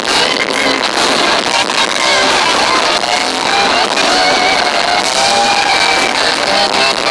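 Heavy rock band playing live, with distorted electric guitars, a held lead or vocal line and drum hits, throughout. It is heard as a loud, harsh, thin audience recording with little bass, the poor sound of a crowd recording.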